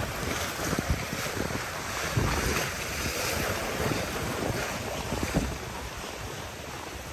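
Wind buffeting the microphone in uneven gusts, over small lagoon waves lapping against a sea wall.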